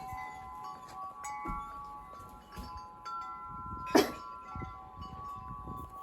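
Wind chimes ringing in the wind, several tones sounding at different moments and overlapping. A sharp knock about four seconds in is the loudest sound.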